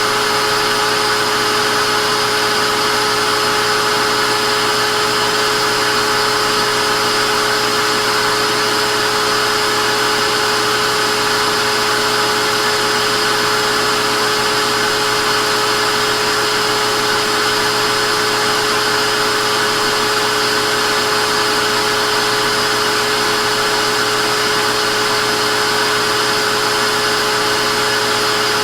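Vacuum cleaner running steadily with a constant motor whine over a broad rushing hiss.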